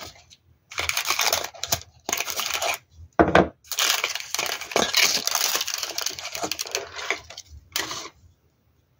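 Tissue paper crinkling as it is unfolded and pushed aside inside a small cardboard shoebox, in several bouts with the longest lasting about four seconds in the middle, and a dull knock about three seconds in.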